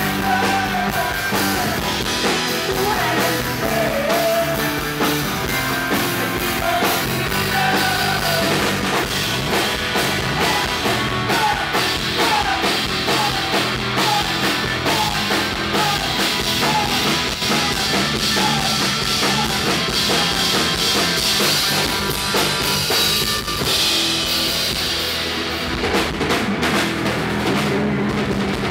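Rock band playing a song: drum kit keeping a steady beat under guitar, with singing at moments.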